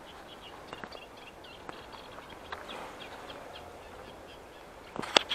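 Birds chirping and singing, with light rustling of grass. Near the end, loud sharp crackling and swishing as tall grass and stems brush past while walking through them.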